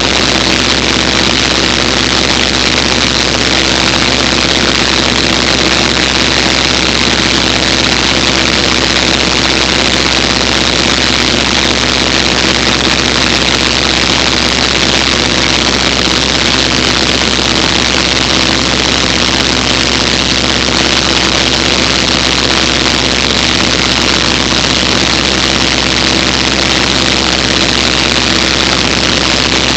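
Cessna 150M's four-cylinder Continental O-200 engine and propeller running steadily, heard from inside the cabin with a rush of air.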